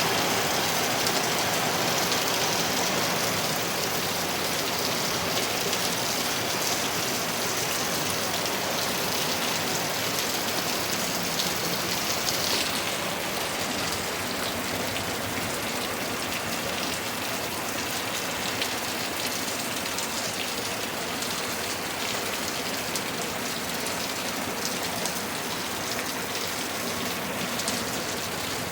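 Hard rain falling steadily in a dense, even hiss, easing slightly about halfway through.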